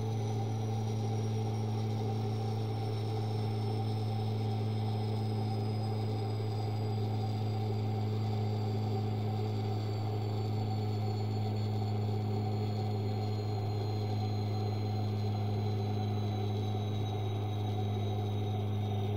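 Simulated turboprop engine sound of a Socata TBM700N's PT6A engine: a steady low drone under a high turbine whine that slides slowly and evenly down in pitch throughout. The engine is losing power after a low-oil-pressure failure.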